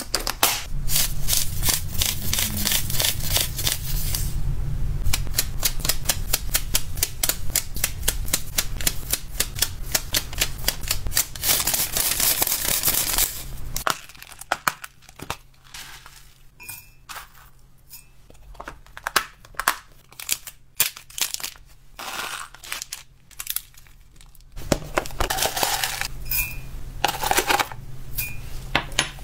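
Close-up handling of dry hamster snacks and plastic packaging: small pellets rattling dense and continuous as they are stirred in a plastic tub, then sparser clicks and taps of a clip-lid plastic container, and dry seed mix scooped with a spoon along with plastic crinkling near the end.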